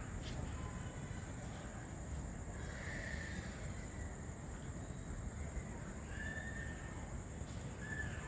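Steady night-time background of low noise and a continuous high-pitched insect trill, with three short faint calls during it. No thunderclap is heard.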